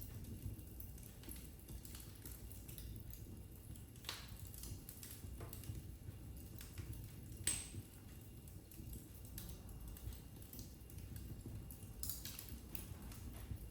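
Wood fire burning in a fireplace: a low steady rumble of flames with scattered crackles and pops, the sharpest about halfway through and a few more near the end.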